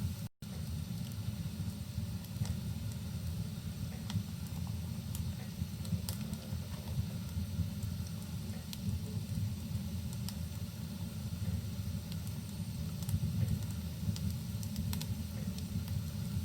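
Crackling fireplace fire, with scattered sharp pops over a steady low rumble of rain. The sound cuts out to silence very briefly just after it begins.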